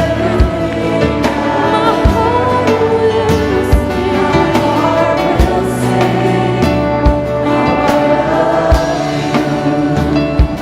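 Gospel-style worship music: a group of voices singing a sustained melody over a band, with a drum beat landing about every second and a half.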